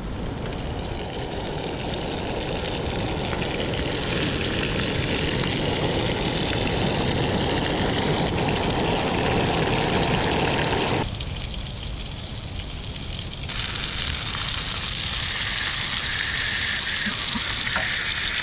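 Salmon pieces sizzling in butter in a stainless-steel frying pan on a propane camp stove. The steady sizzle grows louder over the first few seconds, thins out for a couple of seconds about eleven seconds in, then comes back.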